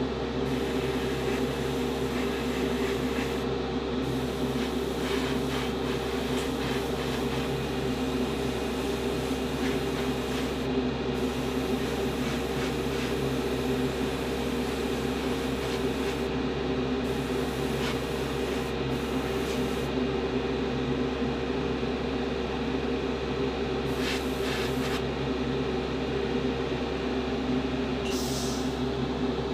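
Airbrush compressor running with a steady motor hum, with a high hiss of air from the airbrush that stops and starts again several times as the trigger is worked.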